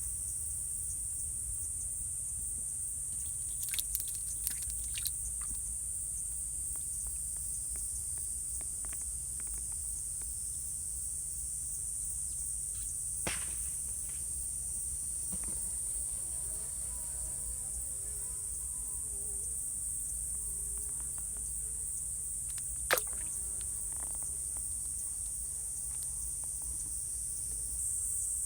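Steady, high-pitched insect chorus over a low background rumble, with a few scattered clicks, the sharpest about 23 seconds in.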